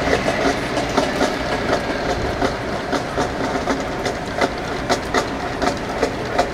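Stadium crowd noise with a marching band's drum taps clicking at a steady pace, about two a second.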